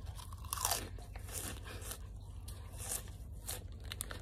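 Crisp tomato-flavoured baked snack stick being bitten and chewed close to the microphone: a string of sharp, dry crunches, several a second.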